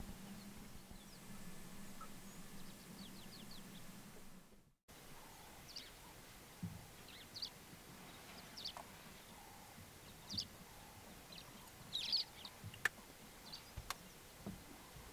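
Faint outdoor bush ambience with scattered short, high bird chirps. A low steady hum in the first few seconds cuts off at an edit about a third of the way in. Two sharp clicks come near the end.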